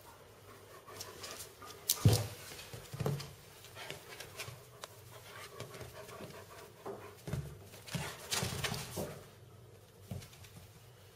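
A small dog making a few short sounds, the loudest about two seconds in, with others about a second later and a cluster near the end.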